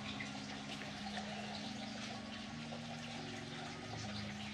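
Quiet background music: sustained low notes that change pitch every second or so, over a soft steady hiss.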